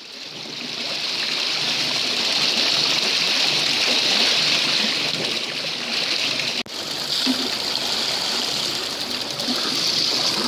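Steady rushing hiss of sea water along the hull of a moving fishing boat. It fades in at the start and drops out for an instant about two-thirds of the way through.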